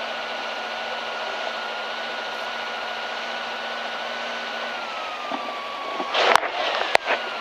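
Inside the cabin of a rally car waiting at the start: a steady running hum with the ventilation fan's thin whine, which drops a little in pitch about five seconds in. Near the end, a short loud clatter and a sharp knock.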